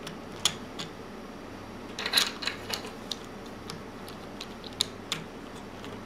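Plastic pieces of a gear-cube twisty puzzle clicking and knocking as they are pressed and worked back into place by hand: scattered sharp clicks, with a short flurry about two seconds in.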